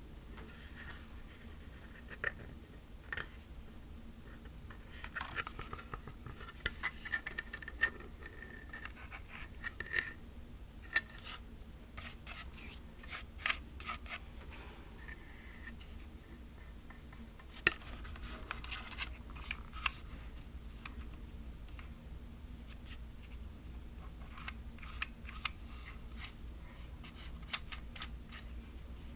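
Fingers handling a plastic film camera: scattered light clicks and taps, with short scratchy rubs against its hollow plastic body.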